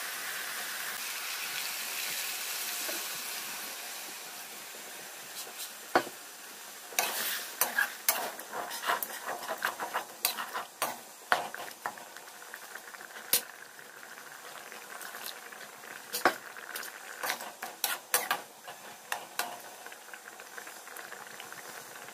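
Mutton curry sizzling in a metal pan, a steady hiss that fades after about four seconds. From about seven seconds a perforated metal spoon stirs it, clinking and scraping against the pan many times.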